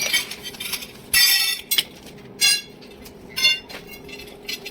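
Stainless steel pipe being handled and knocked, clinking several times. Three of the clinks ring briefly with a bright metallic tone, about a second apart.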